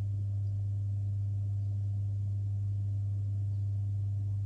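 A steady low hum with a faint background hiss, unchanging throughout.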